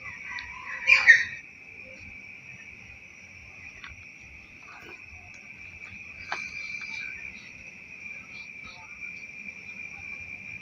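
Steady, high-pitched chorus of night insects such as crickets. About a second in, a short loud unidentified sound rises over it, and there is a single sharp click near the middle.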